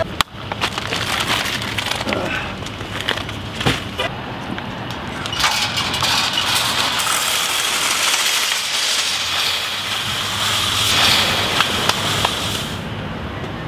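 Outdoor parking-lot ambience: steady, traffic-like noise with scattered clicks and knocks. The high hiss drops away near the end.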